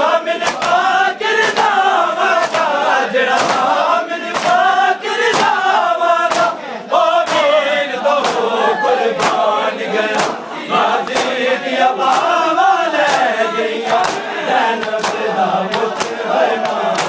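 A crowd of men chanting a mourning refrain in unison while beating their chests with open hands in matam, the slaps landing as sharp claps about once or twice a second over the singing.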